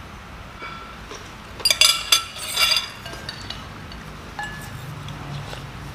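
Metal spoons clinking against white ceramic soup bowls, a quick cluster of ringing clinks a couple of seconds in, then a few faint taps.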